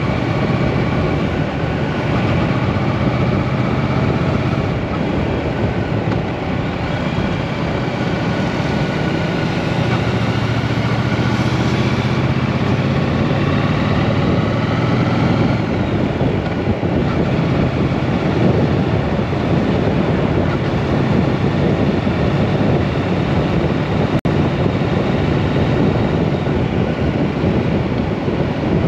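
Triumph Bonneville T120's parallel-twin engine running on the move, under a heavy wash of wind and road noise, its note drifting up and down with speed. One brief click about three-quarters of the way through.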